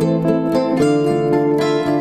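Background music of plucked strings, like a zither, playing a steady melody.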